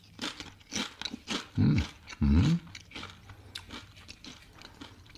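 Crunching and chewing Doritos tortilla chips in the mouth: a run of sharp crackling crunches, then two short, loud hums about a second and a half and two seconds in, with faint chewing after.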